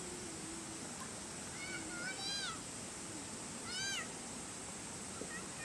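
A cat meowing twice, each meow a high call that rises and falls, with a softer third call starting near the end.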